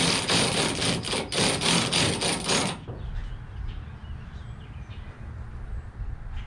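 Cordless drill/driver running in short trigger pulses, driving a taillight mounting screw snug, then cutting off abruptly about three seconds in. After that only a faint low outdoor rumble remains.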